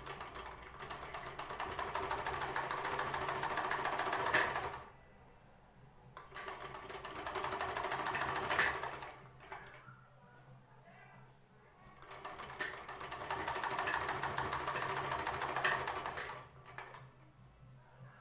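Sewing machine stitching through cotton fabric in three runs of a few seconds each, with short pauses between them.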